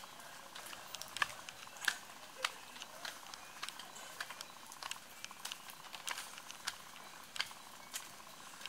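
Light rain pattering: scattered, irregular drops ticking sharply over a faint steady hiss.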